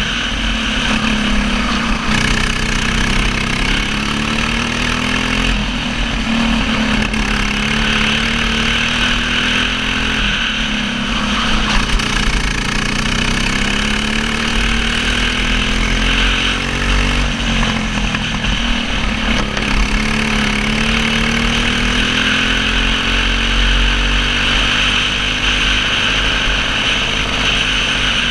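Single-cylinder racing kart engine heard from onboard at full race pace, its pitch climbing for several seconds along the straights and dropping back when the driver lifts for corners, several times over.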